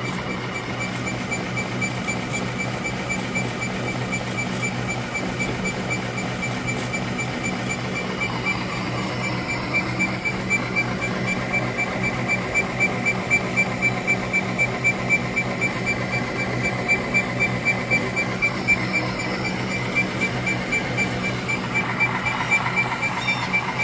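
Esmach baguette moulder running: a steady motor hum with an even, rapid mechanical ticking, about four ticks a second.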